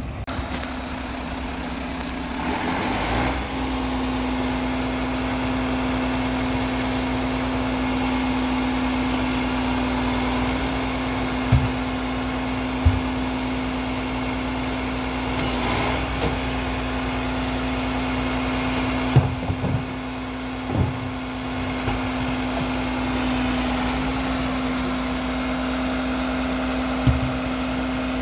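Mack LEU garbage truck with a Labrie Expert 2000 side-loader body idling with a steady hum, after a brief air hiss about three seconds in. A handful of short knocks and clatters come through it as recyclables are dumped by hand into the truck.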